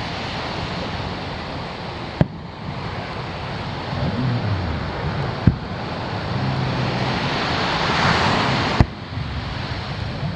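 Firework shells bursting over the sea: three sharp reports about three seconds apart, over steady surf washing on the beach that swells and falls back just after the last report.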